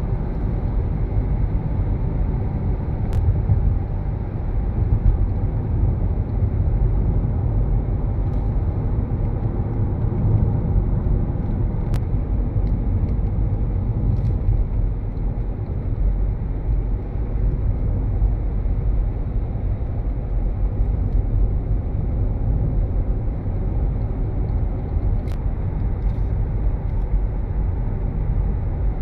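Steady low rumble of a moving car's engine and tyres heard from inside the cabin, with a few faint clicks.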